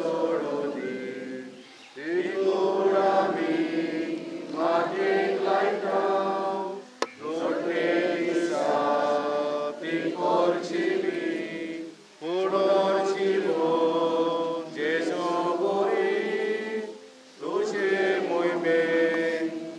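A crowd of mourners singing a funeral hymn together in long, held phrases, each about five seconds, with short pauses between. There is a sharp click about seven seconds in.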